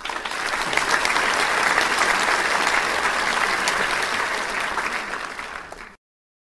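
Applause from an audience, a dense patter of many hands clapping that swells in over the first second and cuts off suddenly near the end.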